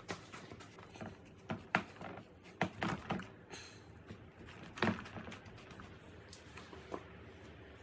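Hands patting and pressing soft date paste into a metal baking tray: irregular soft pats and taps, a few sharper ones around two and five seconds in.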